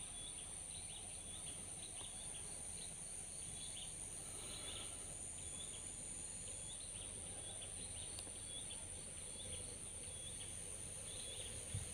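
Quiet outdoor ambience: faint short chirps repeating about twice a second over a steady thin high-pitched whine, from insects or birds in the surrounding vegetation.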